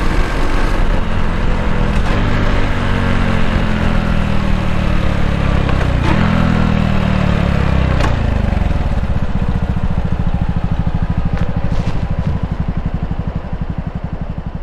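Honda Cross Cub's single-cylinder four-stroke engine running under way, with wind and road noise. About halfway through, the revs fall away as the bike slows, and the engine settles into an even idle beat for the last few seconds.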